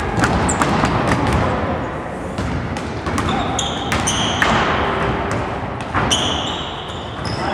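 A basketball being dribbled and bounced on a hall floor during play, sharp repeated bounces, with short high squeaks of sneakers on the court at several points.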